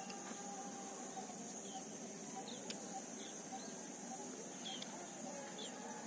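Quiet evening ambience by a pond: a steady high hiss, with about five short, thin bird chirps scattered through it and one sharp click near the middle.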